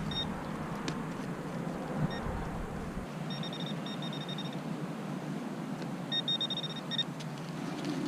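Garrett Pro Pointer pinpointer beeping at one fixed high pitch as it is worked around a dig hole. A few single beeps come first, then two fast trains of beeps, about three seconds in and again about six seconds in, signalling a metal target close to the probe tip.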